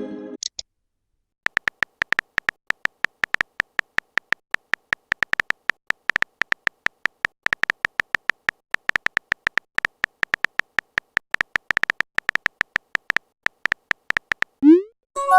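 Phone keyboard typing sound effect: a fast, irregular run of short beep-like clicks, several a second, as a text message is typed out. Near the end, a quick rising chirp and a short chime mark the message being sent or received.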